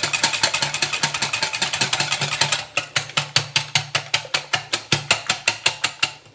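Eggs, sugar and salt being beaten by hand with a whisk in a bowl: quick, even strokes clicking against the bowl. About halfway through the strokes slow a little and grow softer, and they stop shortly before the end.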